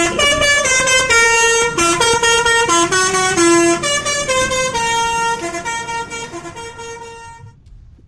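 Basuri 'telolet' multi-tone bus horn playing a quick tune of short, stepped notes, fading out near the end.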